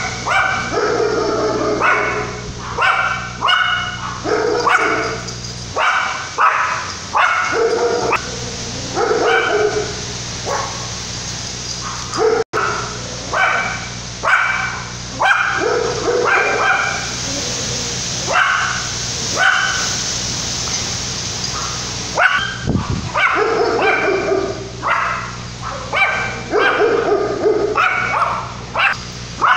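Yorkshire terrier barking repeatedly, in runs of quick sharp barks broken by a few pauses.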